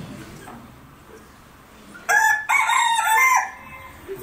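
A rooster crowing once, a loud crow of several stepped notes about two seconds in, lasting just over a second.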